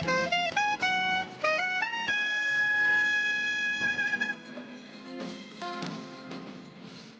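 Background music: a melody of short stepped notes that settles into one long held note, then fades out, leaving only faint sound.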